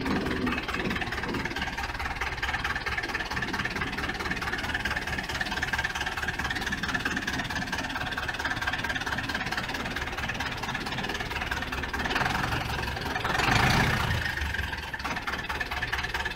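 Farm tractor's diesel engine running steadily while its front-end loader handles a round hay bale, swelling louder for a moment about 13 seconds in.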